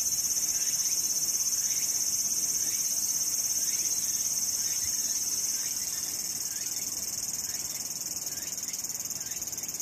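Cicadas calling in a steady, shrill, high-pitched drone that eases a little about halfway through, with a fainter short chirp repeating beneath it.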